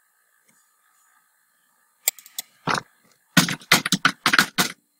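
Typing on a computer keyboard: after a quiet pause, a short run of keystrokes, then a longer quick run about halfway through.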